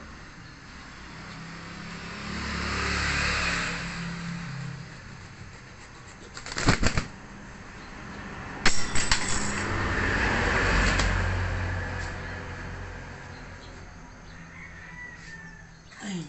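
A held rooster beating its wings in two short bouts, about seven and nine seconds in. A low rumbling noise swells and fades twice.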